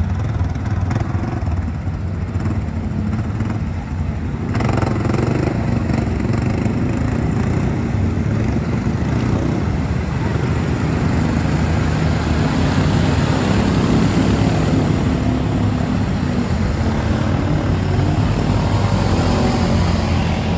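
ATV engine running under load on a mud trail, the sound growing fuller and louder about four seconds in.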